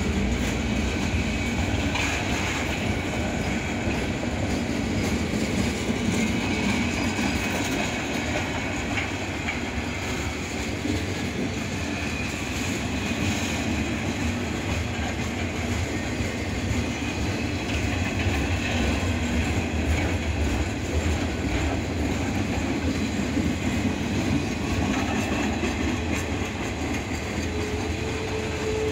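Freight train of loaded flatcars rolling past at speed: a steady rumble and clatter of steel wheels on the rails. A steady tone comes in near the end.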